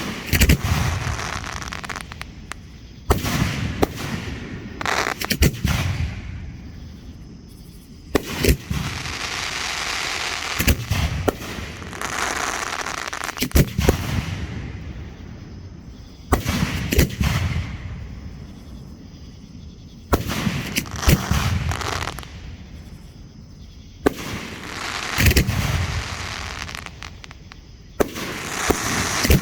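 Aerial fireworks shells going off one after another, a sharp bang every few seconds, often two in quick succession, each followed by a hiss that lasts a second or two.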